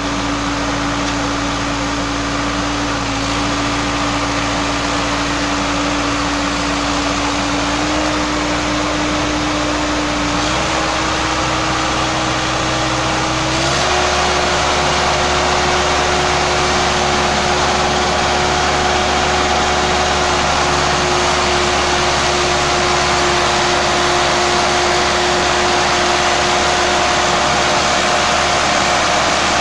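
Sonalika tractor's diesel engine running hard at high revs while the tractor is stuck in deep paddy mud and straining to drive out. Its pitch steps up a few times, the biggest rise about fourteen seconds in, then holds steady.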